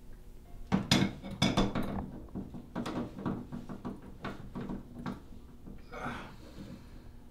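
Hard knocks and clinks of a porcelain toilet tank being handled: a cluster of sharp knocks about a second in, then scattered lighter taps, and a brief scraping rush near six seconds.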